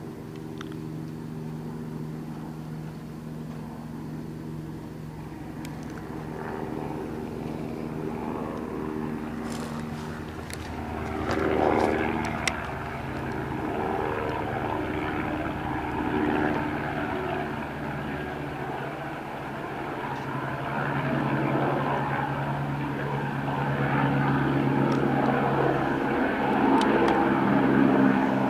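Aircraft engine drone overhead: a steady hum with several held tones that slowly grows louder, with a brief swell about twelve seconds in.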